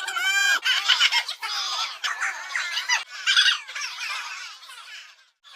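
A crowd of high-pitched, chipmunk-style cartoon voices calling out together, many overlapping. It starts with one bending voice, becomes a dense jumble, and fades out near the end.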